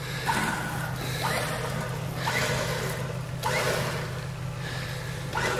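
Mitsubishi L300 van's 2.4 L 16-valve petrol engine idling steadily while it waits to winch, with soft swishing noises about once a second.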